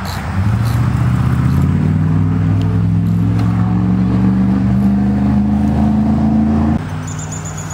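Vehicle engine running, growing louder about half a second in and rising slowly and steadily in pitch, then cutting off abruptly near the end.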